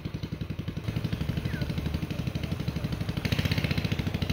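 A go-kart's small engine running at idle with an even, rapid beat, then getting louder about three seconds in.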